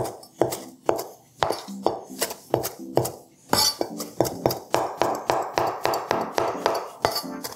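Kitchen knife chopping fresh parsley on a plastic cutting board: a steady run of sharp knocks about three a second, coming faster in the second half, over faint background music.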